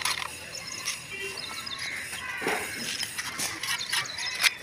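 A mason's trowel scraping mortar in a mortar pan, with a sharp click at the start and a few light knocks and scrapes. Birds chirp faintly in the background.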